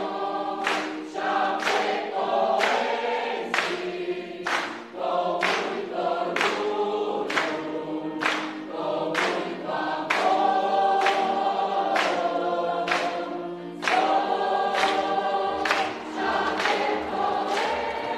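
Mixed choir of men and women singing a lively song, with a steady clapped beat of about three claps every two seconds.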